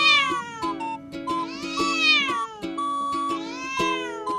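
Domestic tabby cat yowling at another cat: three drawn-out calls that rise and then fall in pitch, over light background music.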